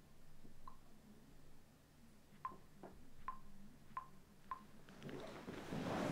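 Faint smartphone keyboard tap clicks, short single ticks of the same pitch at irregular gaps, as someone types on a phone. About five seconds in, a rustling of bedding builds and becomes the loudest sound.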